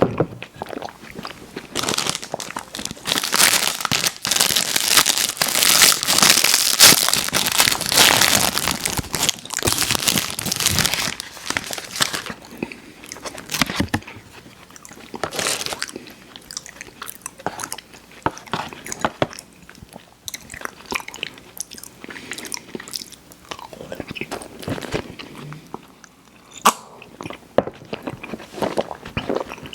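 Close-miked eating: biting and chewing with dense crunching and crackling, heaviest in the first ten seconds or so, then slower, sparser chewing clicks and mouth smacks.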